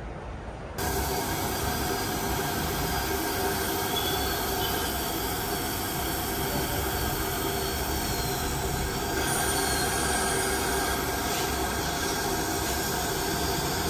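Dental drill and suction running together: a steady high whine over hissing, starting suddenly about a second in, the whine shifting slightly as the drill works on a tooth.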